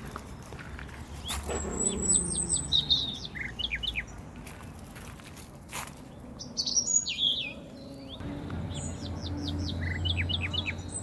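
Songbirds singing in several phrases of quick repeated high notes. A low steady hum comes in about two-thirds of the way through.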